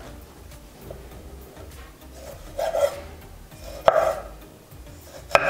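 Chef's knife slicing cherry tomatoes lengthwise on a wooden cutting board: three cuts in the second half, each ending in a sharp knock of the blade on the wood.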